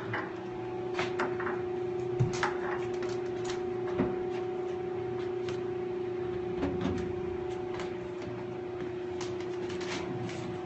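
Scattered clicks and knocks of parts being handled and fastened while a sanding belt is changed on a large belt sander, the clearest knocks about two and four seconds in, over a steady hum.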